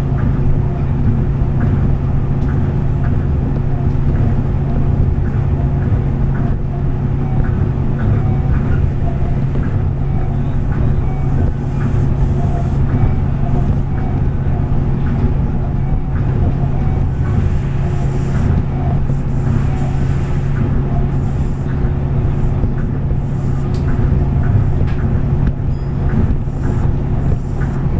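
Interior of a moving Tokyo Monorail car running along its straddle-beam track: a steady rumble with a constant low hum.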